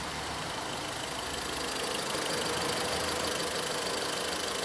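2014 Volkswagen Polo's 1.6 four-cylinder engine idling steadily, getting slightly louder about two seconds in, while its ignition is being tested; the scope shows weak spark on its cylinders.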